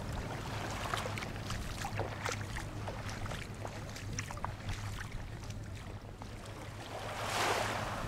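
Wind blowing over the microphone outdoors, a steady low rumble with scattered small knocks, swelling into a stronger gust near the end.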